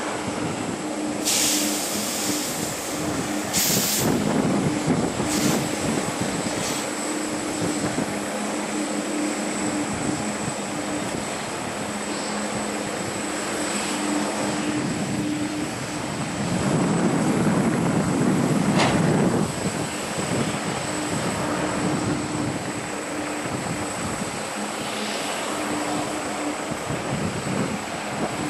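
Twin jet engines of a Boeing 777 freighter running as it moves along the runway: a steady hum with a thin high whine. Gusts of wind buffet the microphone in brief rushes.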